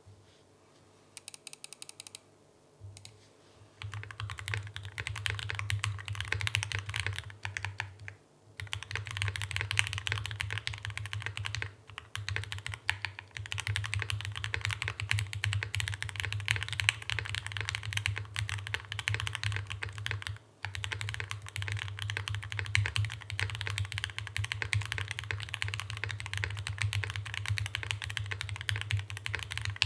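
Fast, continuous typing on an Iron180 custom mechanical keyboard with an aluminium bottom case and lubed Gateron Ink Black linear switches under GMK keycaps. Heavy bass is carried through the microphone's desk arm. A few light clicks come first; steady typing starts about four seconds in, with brief pauses near eight and twenty seconds.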